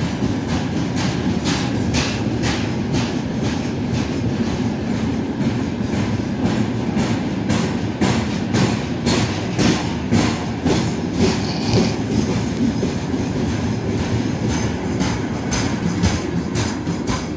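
Freight train of open gondola wagons rolling past close by: a steady heavy rumble with a fast, uneven clickety-clack of wheels over the rail joints.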